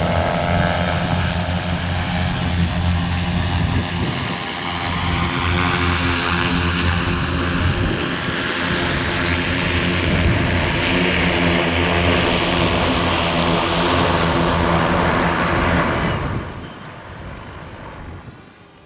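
Electric propellers and BLDC motors of a single-seat drone taxi running steadily, a deep multi-rotor hum. About sixteen seconds in the sound falls away quickly.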